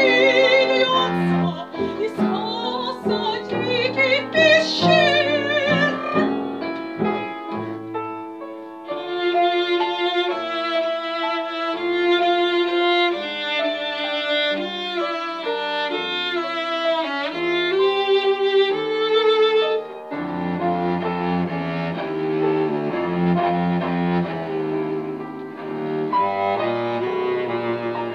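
Live contemporary chamber music for soprano, cello and piano: bowed cello lines over piano, with the soprano singing with a wide vibrato in the first few seconds and the instruments carrying on alone after that.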